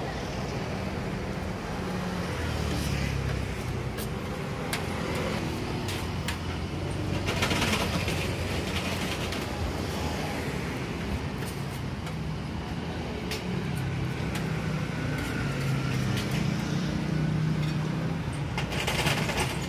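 Street noise with passing traffic: a steady low hum and hiss, scattered clicks and knocks, and two brief louder swells, one about a third of the way in and one near the end.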